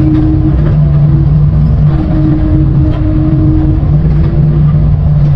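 Excavator's diesel engine running under hydraulic load while digging. It is a steady, loud drone whose tone shifts and briefly drops every second or so as the boom and bucket move.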